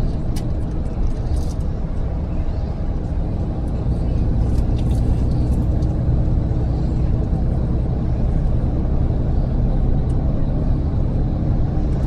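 Steady low drone of a bus's engine and tyres on the road, heard from inside the moving coach, with a few faint clicks of cabin rattle in the first few seconds.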